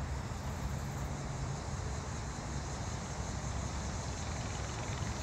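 Mega Moto 105cc mini bike's small single-cylinder four-stroke engine running steadily as it is ridden, a low hum under an even hiss.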